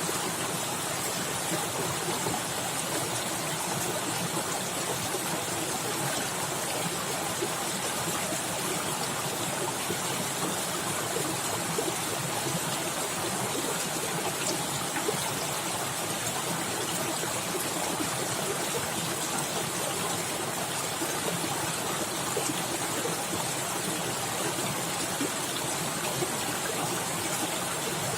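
Fast-flowing forest stream splashing and gurgling steadily over rocks.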